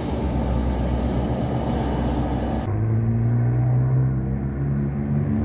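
A freight train rolling past, a dense steady noise heavy in the low end. It breaks off abruptly about two and a half seconds in, and a helicopter's steady droning hum follows.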